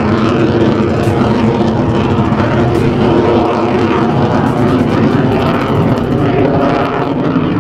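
Aircraft engine noise, a loud steady drone that holds without a break.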